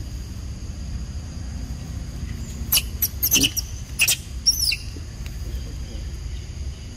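Young macaques giving a quick run of short, sharp, high-pitched squeaks, clustered in the middle few seconds. A steady low rumble lies underneath.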